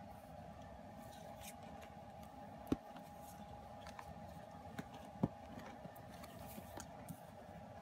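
Quiet handling of a K-pop album's photobook and glossy card sheets on a wooden table: light paper and card rustles with small taps, and two sharper clicks, one a little under three seconds in and another a little past five. A faint steady hum runs underneath.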